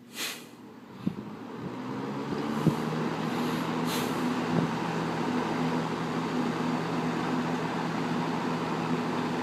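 1976 Kmart (Lakewood) K-223 box fan with its McMillan motor switched on to high: a click, then the blade spins up, its air rush building over the first few seconds and then running steadily over a low motor hum.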